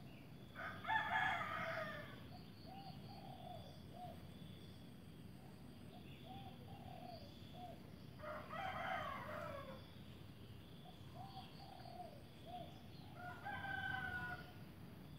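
A rooster crowing three times, each crow about a second and a half long, with softer short calls between.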